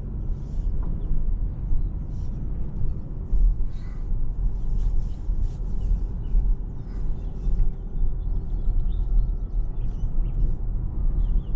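Low steady rumble of road and wind noise from a moving Toyota RAV4 Hybrid, with faint short bird chirps scattered over it.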